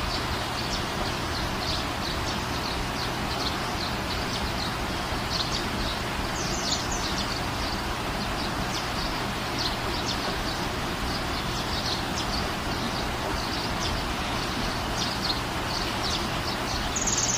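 Small birds chirping repeatedly in short, high notes over a steady background hiss with a low hum.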